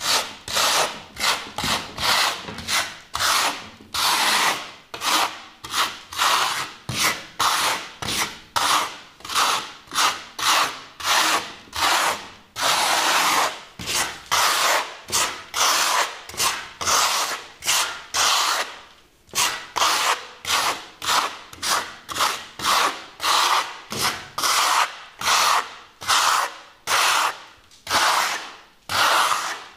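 Steel trowel scraping across a wall as it spreads and smooths a thin coat of wet cement-based architectural concrete plaster, in quick repeated strokes, about two to three a second, with one longer unbroken sweep about thirteen seconds in.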